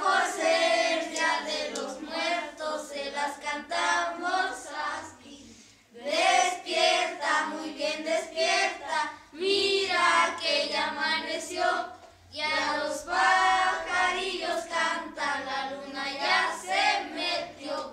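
A group of children singing a Spanish song together without accompaniment, in phrases separated by short breaths.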